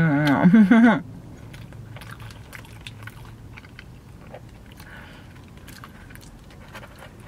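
Close-up chewing of a breakfast burrito with the mouth closed: small wet clicks and smacks. It opens with about a second of loud voiced humming that rises and falls in pitch.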